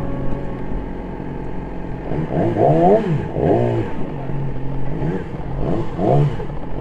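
Yamaha R6 sport bike's inline-four engine revving as the motorcycle accelerates away, its pitch rising and falling several times as it works through the gears.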